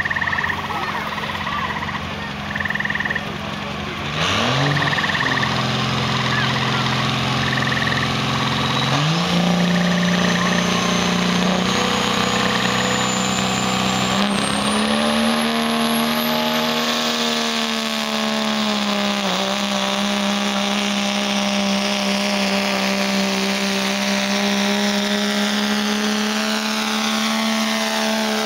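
Cummins diesel in a Dodge Ram pickup pulling a weight-transfer sled. It starts at low revs, climbs in steps over the first several seconds, then runs at high, steady revs under full load, with a turbo whine rising in pitch. Short high beeps repeat during the first dozen seconds.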